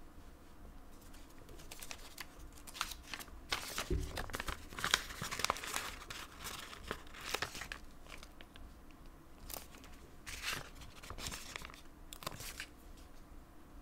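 Sheet of paper planner stickers crinkling and stickers being peeled from their backing, with irregular rustles and light clicks and a soft thump about four seconds in.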